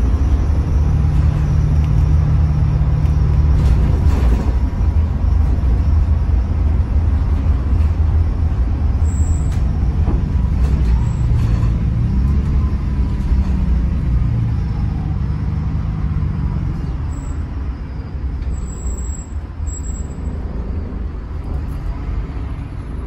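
Volvo B8RLE single-deck bus heard from inside the passenger saloon: a steady rumble of its 7.7-litre six-cylinder diesel engine and road noise. The engine note rises and falls, and the sound gets quieter over the last several seconds.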